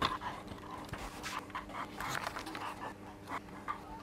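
Faint handling noises: irregular soft knocks and rustles as a microscope stand is set down on its base plate and a paper instruction leaflet is picked up.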